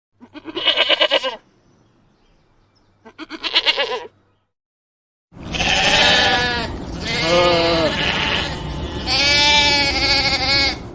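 Lamb bleating: two short, wavering bleats a few seconds apart, then a longer run of several bleats back to back over a noisy background.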